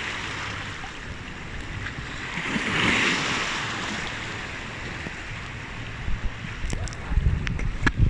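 Seawater surging and foaming through a narrow channel between rocks: a wash ebbing at the start, then a second surge swelling about three seconds in and draining away. Low rumbles and a few sharp clicks near the end.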